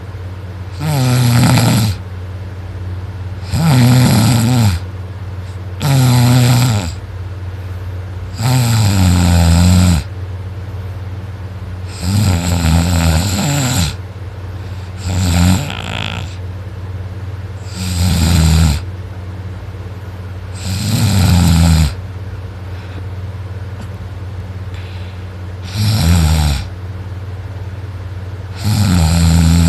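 A person snoring loudly in deep sleep: about ten heavy snores, one every two to three seconds, each falling in pitch. One longer pause falls just past the middle. A steady low hum runs underneath.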